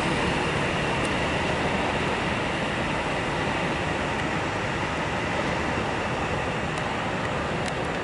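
Steady rushing noise of a distant high-speed electric multiple-unit train running along the line toward the station.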